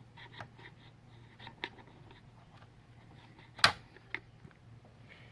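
Small clicks and taps of handling, with one sharp, loud click a little past halfway, over a faint steady low hum.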